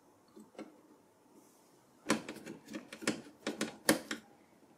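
Heatsink screws being driven down onto a mini PC's CPU heatsink with a screwdriver. A couple of faint taps come first, then about two seconds in a quick run of sharp metal clicks and knocks.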